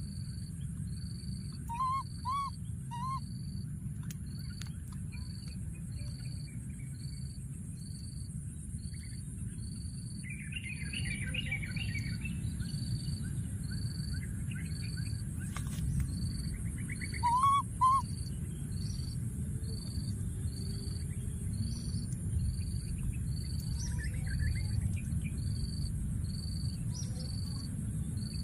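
A baby monkey giving short, high, arching calls: three in quick succession about two seconds in and two more near the middle. Behind them, a regular high pulsing a little over once a second runs on over a steady low rumble.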